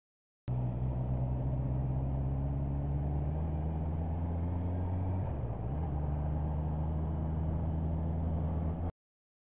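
Motorcycle engine running while riding, heard on board, its note sinking slightly and then dipping briefly about five seconds in before running steady again; the sound starts and cuts off abruptly.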